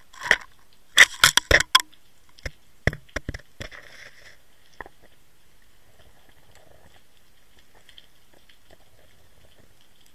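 Underwater, a Water Wolf inline camera rig bumps against the pebbly seabed, giving a run of sharp clicks and knocks, with a quick cluster about a second in. After about four seconds they stop and only a faint steady high hum is left.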